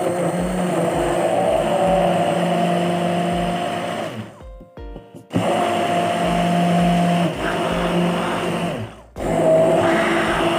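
Electric hand blender running in a plastic beaker, blending a thick milkshake of milk, crushed Oreo biscuits and vanilla ice cream. It runs with a steady pitch in three bursts, stopping briefly about four seconds in and again shortly before the end.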